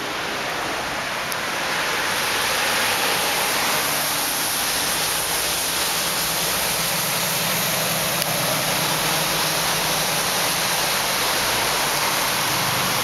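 Steady heavy rain falling on paving and trees, a continuous hiss that gets a little louder about two seconds in.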